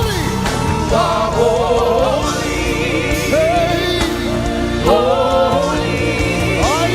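Live gospel worship music: singing voices with a choir over a full band with keys and drums.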